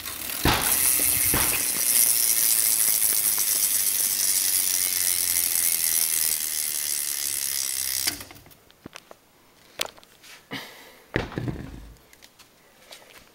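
Stock rear hub of a 20-inch Verde Eon BMX freewheeling as the back wheel spins: rapid pawl clicking run together into a steady high buzz. It stops suddenly about eight seconds in, followed by a few scattered clicks and knocks.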